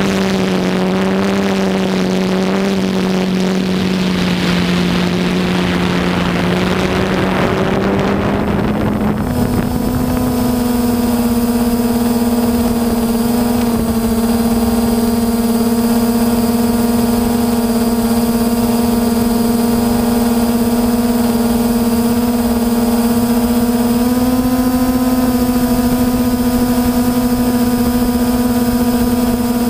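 DJI Phantom quadcopter's four electric motors and propellers droning steadily, heard from the camera on board. A rushing noise lies over the first nine seconds. The drone's pitch steps up about nine seconds in as the drone climbs, and rises a little again near the end.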